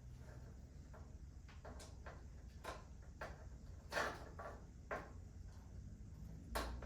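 A handful of faint, irregular knocks and clicks from things being handled, the loudest about four seconds in, over a low steady hum.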